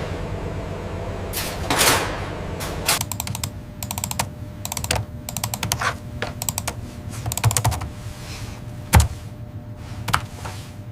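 Quick sharp clicks in irregular bursts over a steady low hum, with a few heavier knocks, one about two seconds in and a louder one near the end.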